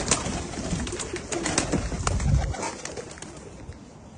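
Tippler pigeons cooing, with scattered sharp clicks; the sound drops quieter about two and a half seconds in.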